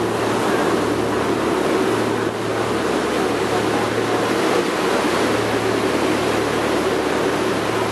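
Boat underway: a steady low engine drone under a loud, even rush of water along the hull.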